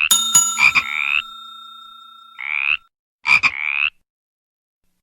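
A frog croaking in repeated short calls, each opening with a few quick pulses and running into a rasping croak that rises slightly in pitch; three calls are heard. Near the start a sharp click is followed by a ringing tone that fades away over about two seconds.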